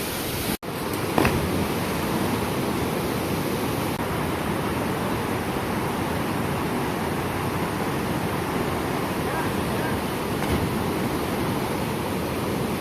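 Waterfall's falling water rushing in a steady, dense hiss, with a split-second dropout about half a second in.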